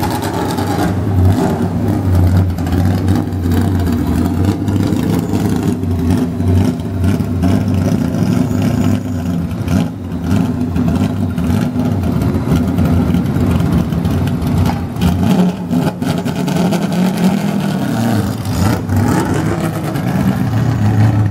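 1967 Ford Mustang Trans-Am style race car's V8 running loudly at low speed, idling and then rolling off, with the revs rising briefly near the end.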